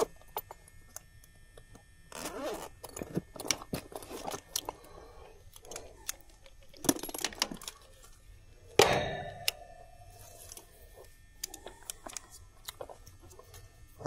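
Handling noise from a Fieldpiece clamp meter and its test leads being picked up and readied: scattered clicks, rustles and rattles. About nine seconds in there is a louder knock followed by a short steady tone.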